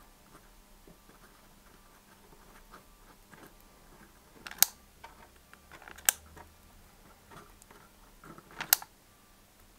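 Soldering a resistor into a wire with a soldering gun: faint handling noise with three sharp clicks, about four and a half, six and eight and a half seconds in.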